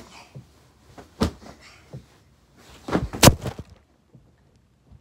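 Pillow fight: pillows whacking against bodies and the bed, a few separate soft thuds with the loudest about three seconds in.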